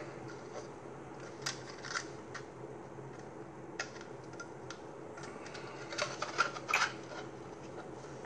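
Plastic model kit parts being handled and pressed together: scattered light clicks and taps, coming more quickly in a cluster near the end.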